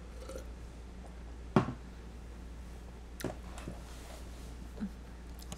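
Drinking from a plastic cup and setting it down: a few short knocks and swallowing sounds, the loudest about a second and a half in, over a steady low hum.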